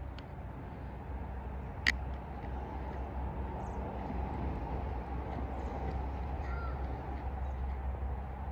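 Steady low outdoor background rumble, with one sharp metallic click about two seconds in from the battery terminal bolt being hand-screwed down.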